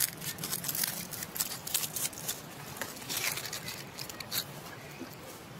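Irregular dry rustling and crackling: a quick run of short clicks, thinning out after about four and a half seconds.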